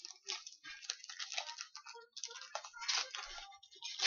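Trading cards being handled and flipped through by hand: irregular rustling with quick clicks and slides of card stock.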